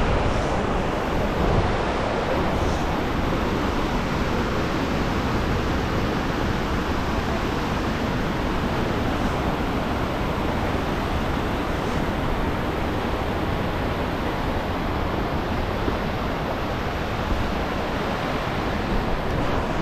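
Mountain stream rushing over rocks and boulders: a steady, loud rush of white water.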